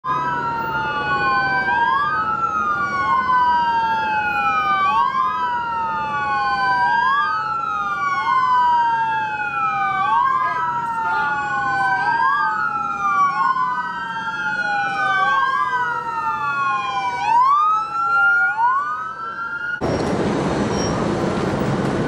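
Police car sirens wailing, two of them overlapping out of step, each rising quickly and falling more slowly about every two seconds. About twenty seconds in they cut off abruptly to street traffic noise.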